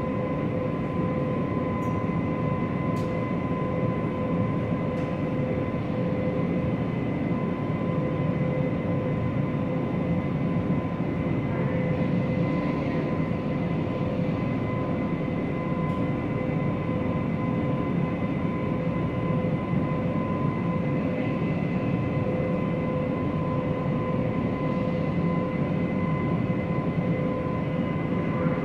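A light rail car standing at a platform, its onboard equipment giving a steady hum: a constant high-pitched whine over a low rumble, heard from inside the car.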